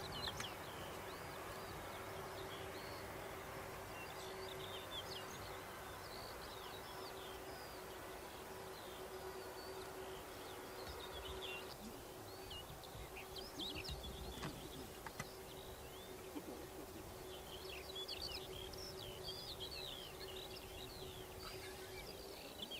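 Small songbirds chirping and twittering over a steady low background hum, the hum a little louder in the first half.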